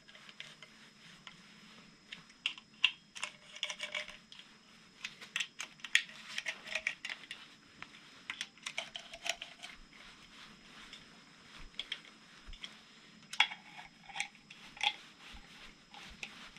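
Hand ratchet clicking in quick runs with short pauses between, as 10 mm bolts are run in on an engine's timing cover, with light metallic clinks among the clicks.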